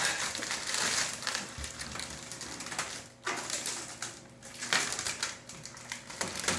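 Black protective plastic film being peeled off a stainless steel range hood, crinkling and crackling as it is pulled, with two short lulls about three and four seconds in.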